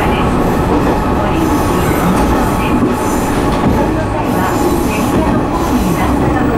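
Kumagawa Railway KT-500 diesel railcar running steadily along the line: its diesel engine and its wheels on the rails make a continuous loud noise.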